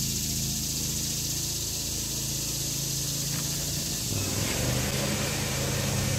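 Steady machine drone with a high hiss. Its pitch shifts about four seconds in.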